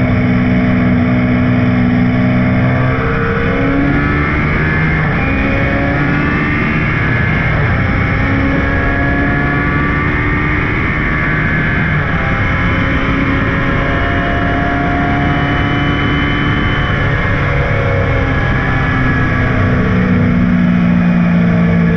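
Onboard sound of a Lola T298 racing sports car's BMW M12/7 two-litre four-cylinder racing engine at full throttle, its pitch climbing and breaking repeatedly as the driver shifts through the gears and lifts for corners.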